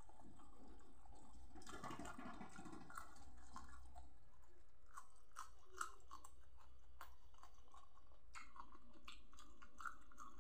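A person chewing a mouthful of food eaten by hand, with crunching and a run of small sharp clicks and crunches through the second half.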